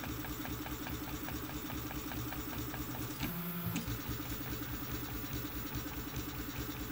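Rebel II HD 3D printer's stepper motors whining as the print head moves at 70 mm/s, in a quick rhythm of short moves, several a second. About three seconds in comes one longer move at a lower pitch, lasting half a second.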